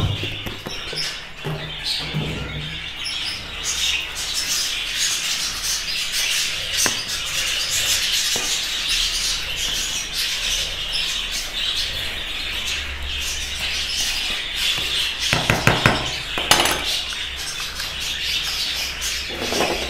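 Many caged budgerigars chattering and chirping together in a continuous, busy twitter. A couple of dull knocks sound about three quarters of the way through.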